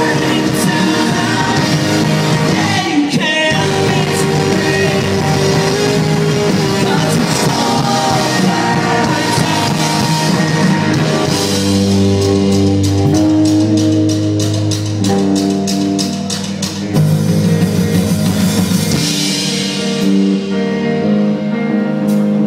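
Rock band playing live in a large hall, loud: electric guitars, drum kit and a singing voice. In the middle comes a run of fast, even drum hits, about five a second; near the end the high end falls away, leaving held guitar chords.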